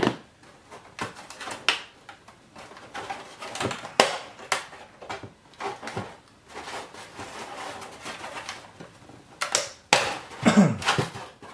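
Hands rummaging in a cardboard box of packaging: irregular rustles, scrapes and light knocks, with a louder cluster about ten seconds in.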